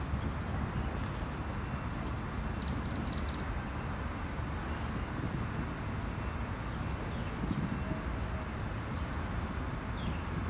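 Steady low background rumble and hiss of an open-air recording, with a quick run of four short high chirps about three seconds in.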